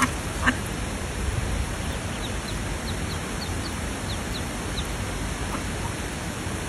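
Ducklings peeping: one louder call about half a second in, then a quick run of about ten short, high, falling peeps, over a steady hiss.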